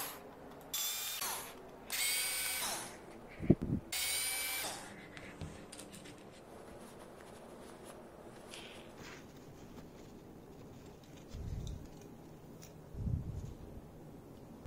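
Cordless screwdriver motor running in three short bursts, backing the screws out of a CPU cooling fan, with a sharp knock between the second and third burst. After that only quieter handling, with a couple of soft thumps near the end.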